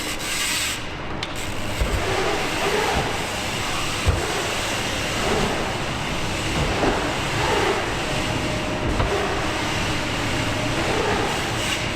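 Mountain bike riding a bike-park run: steady wind and rolling-tyre noise, with a few low thumps.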